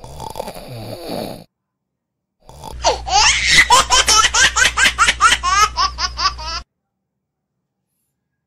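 A short snore, then after a pause a burst of laughter sound effect, about four 'ha's a second for some four seconds, which cuts off suddenly.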